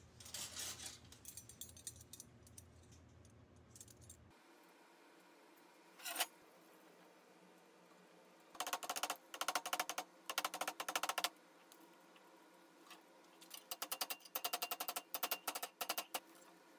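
Bent steel wire pieces clinking and rattling as they are gathered on a steel welding table, then, after a cut, bursts of rapid metallic taps that ring as the wire is clamped in a bench vise and hammered over a steel plate.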